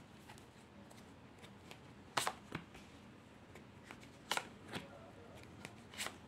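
Black Grimoire tarot cards drawn one at a time off the deck and laid on a cloth-covered table: short crisp card snaps in pairs, about two seconds apart.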